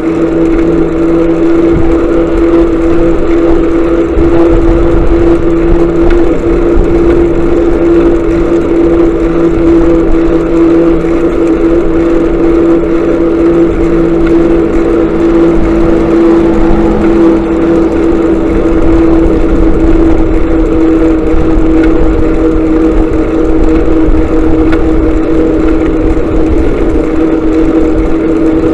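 Motorcycle engine running at a steady speed on the road, a constant unwavering hum over a low rumble of wind and road noise.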